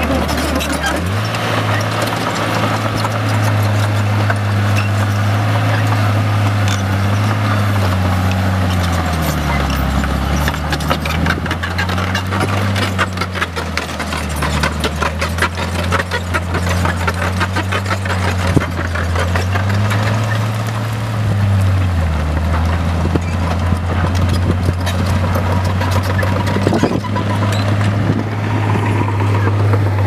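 Caterpillar D4C crawler bulldozer working: its diesel engine runs at a varying pace, speeding up and dropping back several times. The steel tracks clank and rattle, most densely in the middle stretch.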